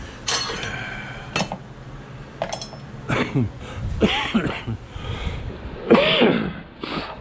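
Short non-speech vocal sounds from a person: three or four brief bursts with a rising-and-falling pitch, the loudest near the end. Two sharp clicks come in the first second and a half.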